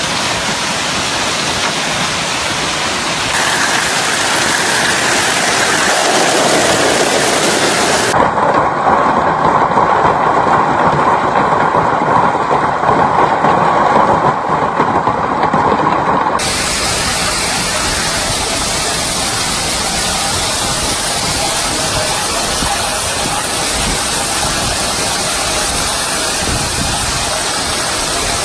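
A hailstorm: hail and heavy rain pelting down in a dense, steady roar of hits with no single impact standing out. The sound changes abruptly about 3, 8 and 16 seconds in as one recording gives way to the next, and is a little louder in the middle stretch.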